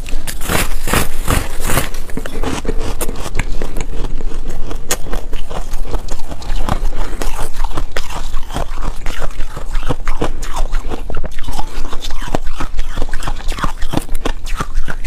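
Foam ice being bitten and chewed: dense crisp crunching and crackling, with the strongest bites in the first two seconds, then steady chewing crunches.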